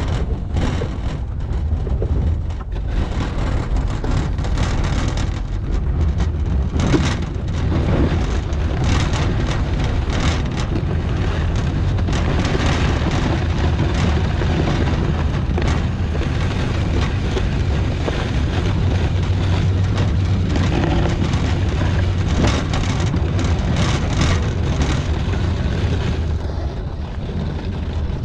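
The engine of the machine pushing a 16 ft Sno-Power plow runs steadily while the blade scrapes along pavement and shoves a pile of snow, with frequent rattles and clatter from the plow.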